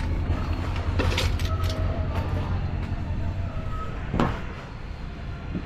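Metal scrap clanking and rattling as a bucket of brass pieces is set into a wire shopping cart, over a steady low engine-like rumble; a sharper knock comes about four seconds in.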